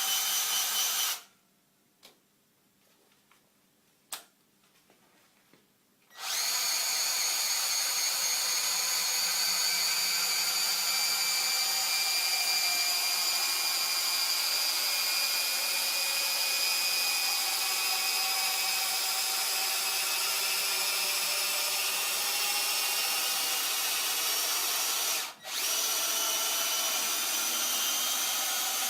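Metabo BS 18 LTX cordless drill/driver running with a steady high motor whine. It stops about a second in, leaving a few seconds of near silence with a couple of clicks, then starts again and runs steadily, stopping briefly near the end before running on.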